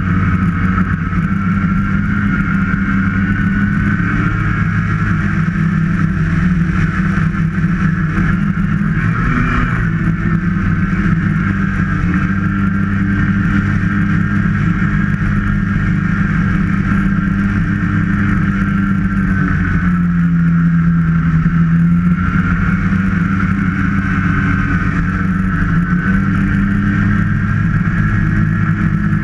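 Snowmobile engine running steadily at trail cruising speed, its pitch dipping and rising a little a third of the way in and again about two-thirds through as the throttle eases and picks up.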